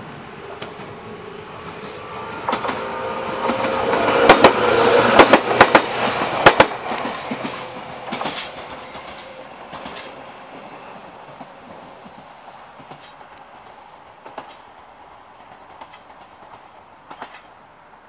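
Enshu Railway 1000-series electric train, set 1006F, approaching and passing close by, then moving away. Its wheels clack over the rail joints as it goes past about four to seven seconds in, and the sound then fades.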